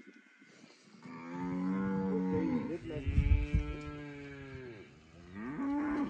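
Cattle lowing: one long moo that runs for about four seconds, then a shorter, rising moo near the end.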